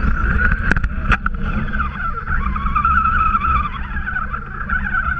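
Electric motor and gear whine of an Axial RC truck driving through snow, heard from on board, the pitch rising and falling with the throttle over a low rumble. Two sharp knocks in the first second or so.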